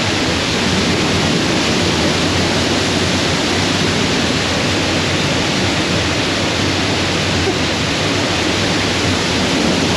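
Large waterfall crashing down in a gorge: a loud, steady rush of falling water, close enough to be deafening.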